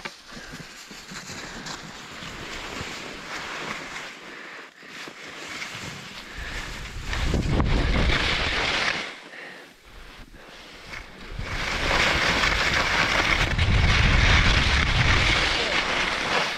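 Skis scraping and hissing over chopped-up snow, with wind rumbling on the microphone. Quieter at first, then two louder stretches, about seven seconds in and again from about twelve seconds on.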